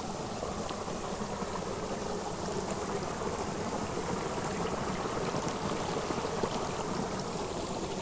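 Muddy floodwater from the rising Subarnarekha River rushing steadily over grassy ground, a continuous even water noise.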